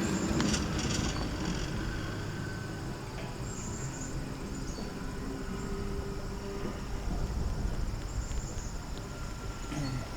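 Insects, crickets or the like, chirping faintly in a high steady trill with a few short chirps, over a steady low rumble.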